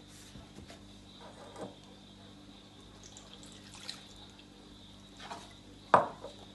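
Scattered small kitchen sounds while pancake batter is prepared: light knocks and liquid drips, with one sharp hit about six seconds in, over a faint steady hum.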